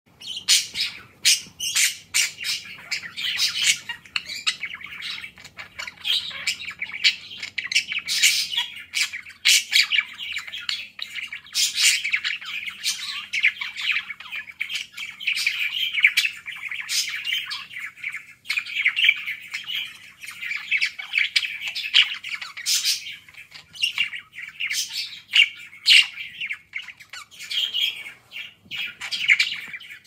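Budgerigar chattering and warbling without a break: a busy stream of scratchy notes studded with frequent sharp chirps and squawks.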